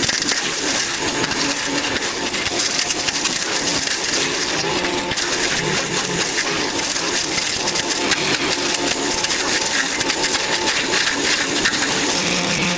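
Steady, dense crackling, crunching and clattering of dry vegetation and debris being cleared by hand.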